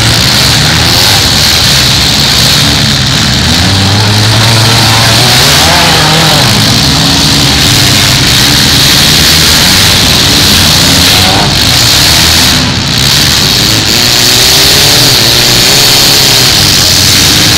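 Several compact demolition-derby cars with loud engines revving and running at once, their pitches rising and falling as they drive and push against each other.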